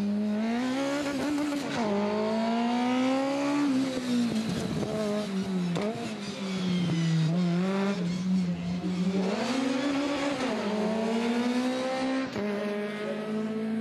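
Formula BMW single-seater's 140-hp motorcycle-derived four-cylinder engine revving hard, its pitch climbing and falling again and again as the car accelerates and brakes through tight corners.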